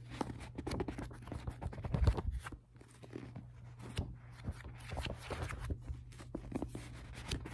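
Paperback book handled close to the microphone: pages rustling and flexing, fingers tapping and scratching on the paper and cover, with one louder knock about two seconds in.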